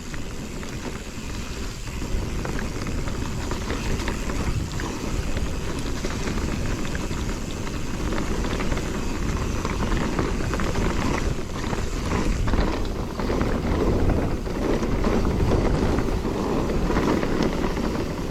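Mountain bike rolling fast down a dirt singletrack: a steady rush of wind over the microphone and tyre noise, with many short knocks and rattles from the bike over bumps.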